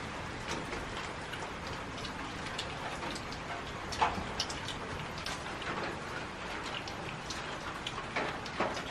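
Steady hiss with scattered light ticks, and a sharper clink of steel tableware about four seconds in, as people eat by hand from steel plates.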